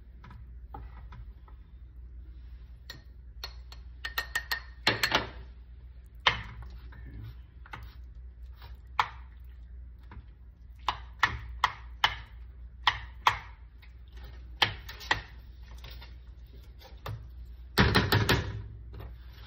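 A utensil clinking and scraping against a baking dish as pasta bake is scooped out for a taste: irregular sharp taps, with a louder, longer scrape near the end, over a steady low hum.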